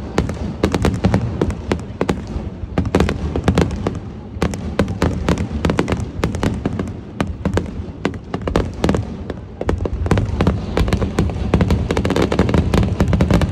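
Fireworks display: a rapid barrage of shell bursts and crackles, several sharp reports a second over a continuous low rumble.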